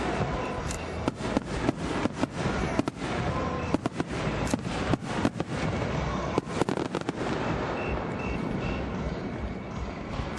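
Fireworks display: a rapid barrage of shells bursting and crackling in quick succession, several bangs a second. The bangs thin out after about seven seconds, leaving a steadier rumble.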